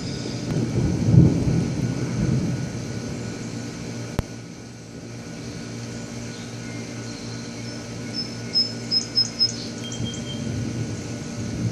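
Thunder rumbling, loudest at the start and fading away, then swelling again near the end as a thunderstorm moves in. A single sharp click comes about four seconds in, and a quick run of short high chirps comes after about eight seconds.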